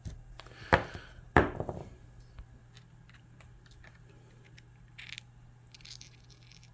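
Cut rock pieces being handled: two sharp clacks of stone set down on a hard surface, less than a second apart, then a few light clicks and two brief scrapes.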